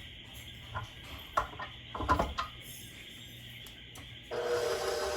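A few light clicks and knocks, then an electric mixer motor switches on about four seconds in and runs steadily, beating the creamed butter, sugar and guava paste.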